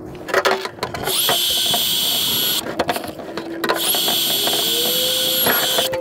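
Power drill run in two bursts, the first about a second in and the second about four seconds in, each spinning up quickly to a steady high whine; a few clicks come just before the first.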